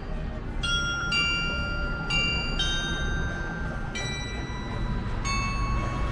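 Bells of a large glockenspiel cuckoo clock playing a slow tune: about six single struck notes, each ringing on.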